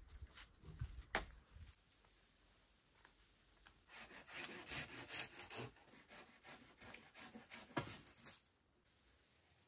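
Wood being worked by hand: a sharp knock about a second in, then a few seconds of quick rubbing and scraping strokes on wood that die away near the end.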